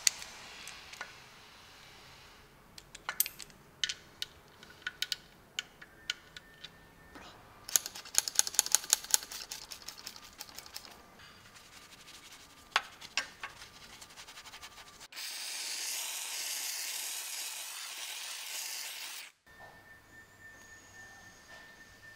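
A socket ratchet clicking on an oil drain plug, first in a few separate strokes, then spun in a quick run of rapid clicks. Later comes a steady spray hiss lasting about four seconds that stops abruptly.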